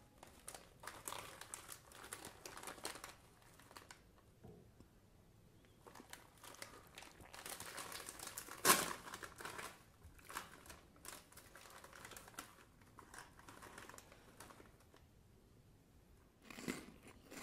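Foil-lined plastic snack bag of Cheetos Bolitas crinkling in bursts as it is handled and pulled open. One sharp rip, the loudest sound, comes about nine seconds in.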